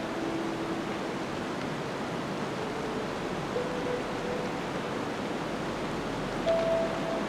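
Steady rushing noise of blizzard wind, with a few slow, held notes of background music over it.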